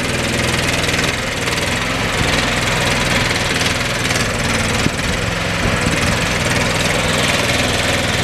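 Engine of a remote-controlled shed buggy running steadily as it carries a shed.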